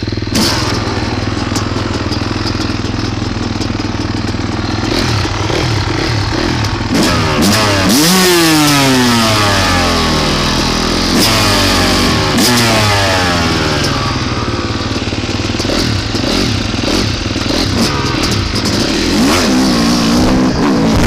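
Dirt bike engine revving while riding, its pitch climbing and dropping again and again as the bike accelerates and shifts, with wind buffeting the microphone.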